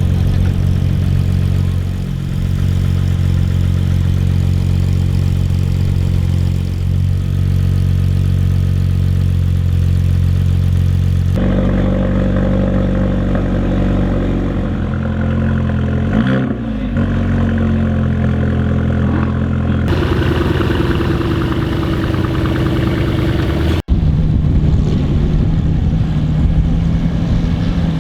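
A Porsche 911 GT3 (997)'s flat-six idling steadily. After a cut, a Mercedes-AMG A-Class four-cylinder idles and is revved up and back down about halfway through. Then a Ferrari 488's twin-turbo V8 running, and in the last few seconds cars pulling away with engines running.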